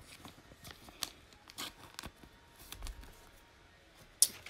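Faint handling of trading cards and a foil card pack: light rustles and a few soft clicks, then one sharp crackle of the foil wrapper near the end.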